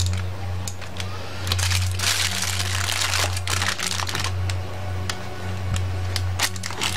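Aluminium foil crinkling and rustling as it is handled and folded, busiest about two to four seconds in, over a steady low hum.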